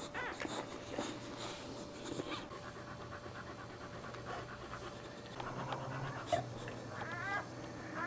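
Boxer mother dog panting and licking her newborn puppies, with wet licking sounds in the first couple of seconds. Near the end a newborn puppy gives a few short, high squeaks.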